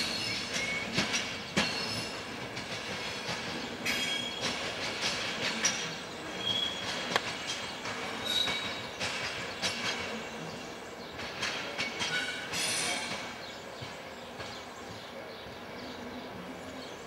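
Empty passenger coaches rolling slowly over yard points and curved track, the wheels giving short high-pitched squeals while they click and clunk across rail joints and switches. The sound grows fainter in the last few seconds as the train moves away.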